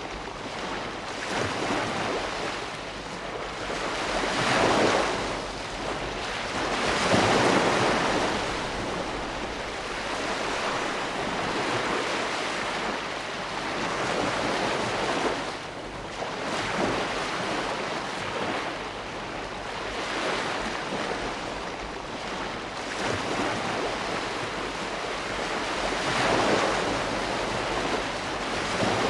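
Ocean waves breaking and washing on a shore: a continuous rushing surf that swells with each breaking wave, louder about five seconds in, again around seven to eight seconds, and near the end.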